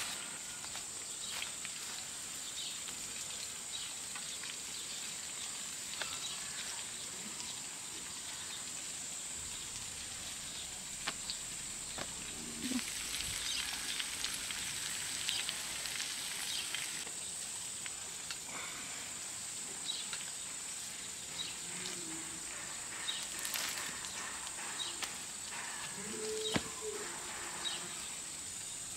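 Steady high-pitched insect chirring, with scattered light clicks and a stretch of crackle about halfway through.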